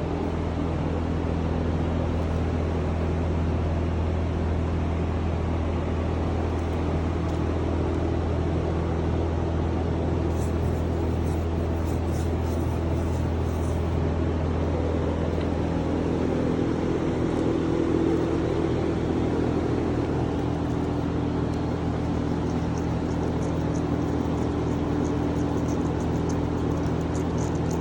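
Steady hum of a running motor or machine, with a low drone that eases slightly about halfway through.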